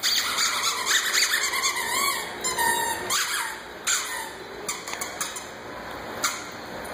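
Squeaky dog toy squeaking a few times as a boxer mouths it in a trainer's hand, followed by a few sharp clicks.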